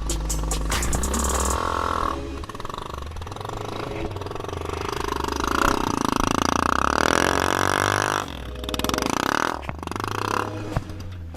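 Trail motorcycle engine revving up and down through the middle, loudest about halfway through, over background music with a steady bass line.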